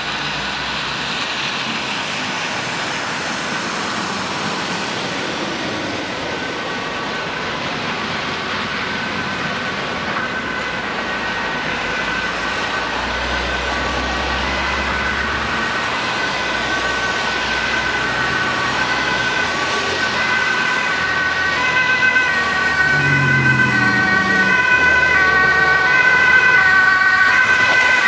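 German two-tone emergency vehicle siren, alternating steadily between two pitches and growing louder as a German Red Cross ambulance approaches, over the rumble of street traffic.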